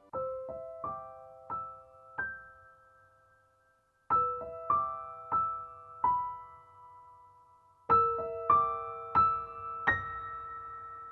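Background music: a gentle electric-piano melody of single decaying notes in short phrases, with a brief pause about four seconds in.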